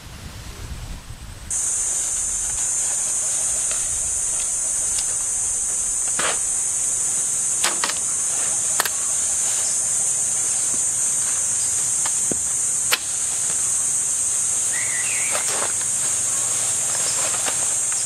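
A loud, steady, high-pitched insect chorus starts abruptly about a second and a half in, after a moment of low wind rumble. Scattered light clicks and taps sound over it, and a short chirp comes about three seconds before the end.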